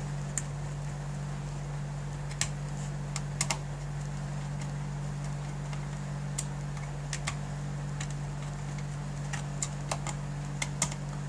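Irregular light clicks and ticks of a small screwdriver working the screws on a laptop's underside cover, over a steady low hum.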